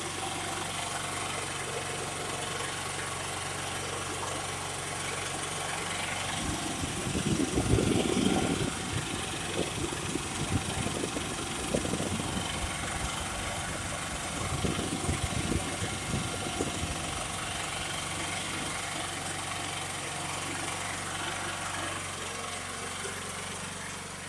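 Champion 100519 open-frame inverter generator running steadily in eco mode with a fan plugged in as a load, with bursts of low rumbling noise in the middle stretch; it fades off near the end.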